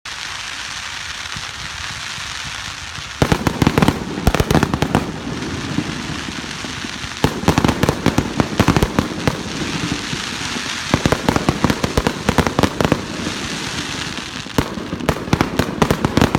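Fireworks finale: a steady hiss of sparks, then dense salvos of rapid bangs and crackles starting about three seconds in and returning in waves every few seconds.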